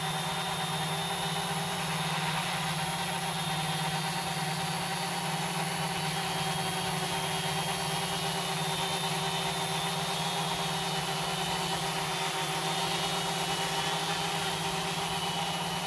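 Homebuilt X-frame quadcopter's electric motors and propellers whirring steadily as it hovers, a level hum with several held tones and no changes in pitch.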